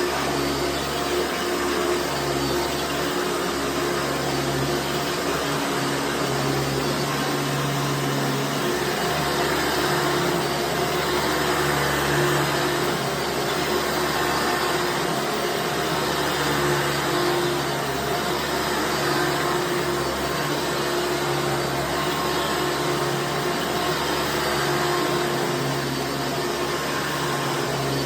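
1996 Hoover Runabout Supreme upright vacuum cleaner running steadily, a motor hum under a continuous hiss of airflow, swelling and easing slightly. The owner says the motor sounds a little dry and needs its bearings oiled.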